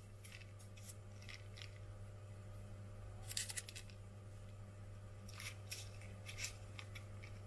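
Faint, short crinkles and rustles of baking paper and puff pastry being handled as the pastry corners are folded and pinched by hand, coming in a few small clusters over a steady low hum.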